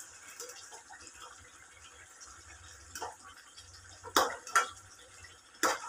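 Spatula clinking and scraping against a cooking pan as chicken is stirred, with a few sharp clinks in the second half.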